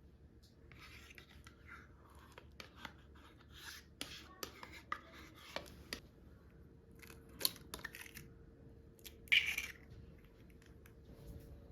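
Kitchen handling sounds while preparing food: scattered light clicks and taps with short rustles, the loudest rustle about nine seconds in.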